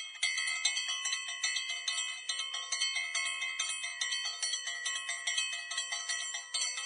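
A bell ringing rapidly and steadily, struck several times a second, with bright overlapping tones.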